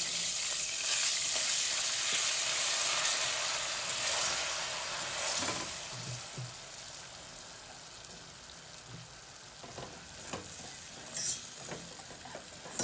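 Melted butter sizzling in a stainless steel saucepan while a wire whisk stirs it. About five seconds in the sizzle drops quieter as flour is whisked into the butter to make a roux, with a few taps of the whisk on the pan near the end.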